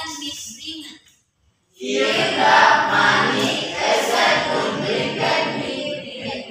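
Many voices singing together in chorus. They break off for under a second near the start, then come back in full.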